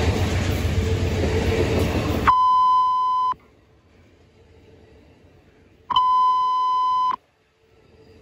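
Noise of a passing Amtrak Superliner train that cuts off abruptly about two seconds in, followed by two long, steady beeps of about a second each, a few seconds apart, at the same pitch: a fire dispatch radio's alert tone ahead of a call.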